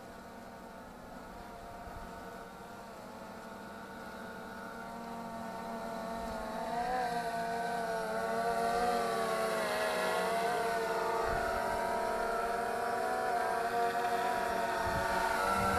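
DJI Phantom 3 quadcopter's four propellers humming in flight, their pitch wavering up and down, growing steadily louder as the drone flies closer.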